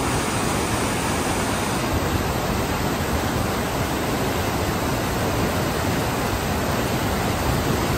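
Creek water pouring out of a large steel culvert pipe: a steady, unbroken rush of white water.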